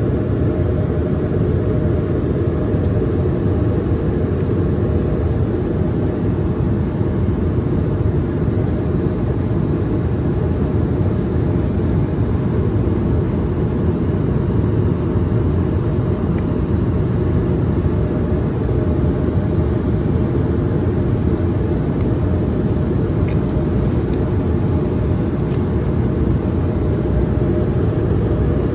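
Steady cabin noise inside a Boeing 757 airliner: an even, deep rush of engine and air noise with no change in level.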